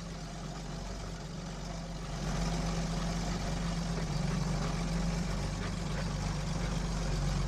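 KR2 light aircraft's propeller engine running at takeoff power during the takeoff roll, with a steady drone that gets louder and higher about two seconds in.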